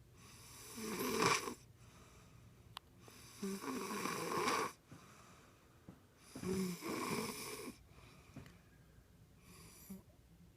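A sleeping woman snoring: three loud snores about three seconds apart, each lasting a little over a second, then a fainter one near the end.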